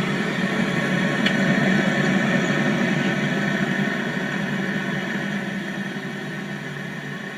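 Refrigeration unit of a four-door commercial glass-door fridge running, its compressor and fan making a steady hum with several steady tones. It grows gradually fainter over the last few seconds.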